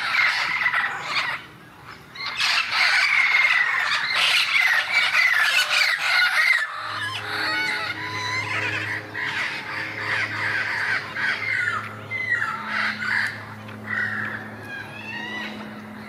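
Red-crowned amazon parrots squawking and screeching in a loud, harsh, almost continuous run, with a short lull about a second and a half in. From about seven seconds in, a low steady hum sits beneath the calls.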